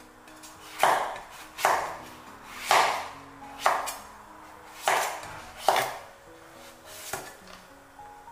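Chinese cleaver shaving the rind off a pumpkin wedge on a wooden cutting board: about seven slicing strokes, roughly one a second, over soft background music.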